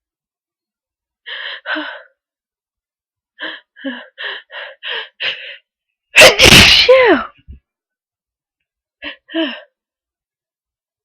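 A sneeze from a head cold after a drawn-out buildup. There are short gasping in-breaths, then a quick run of six catches, then one loud sneeze about six seconds in whose voice falls in pitch, followed by a couple of breaths.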